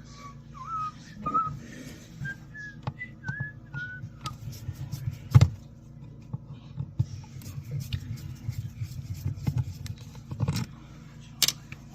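A person whistling a short, wandering tune of separate notes for about four seconds, followed by scattered knocks and clicks of handling, with one loud thump about five seconds in.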